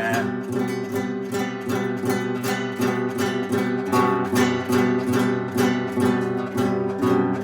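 Acoustic guitar strummed in a steady rhythm, several strums a second, holding a repeating chord pattern.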